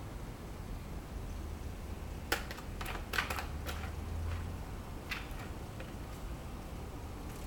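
Light clicks and taps of a cat's paw batting at a plastic ring toy with a felt pad: a quick cluster about two to three and a half seconds in, and two more around five seconds, over a low steady hum.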